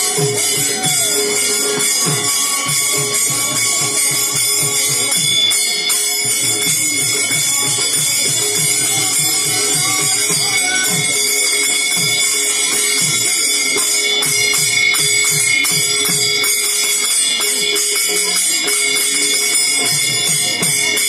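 Ritual music: a continuous metallic jingling of small cymbals or bells over a beating drum, with a few held tones.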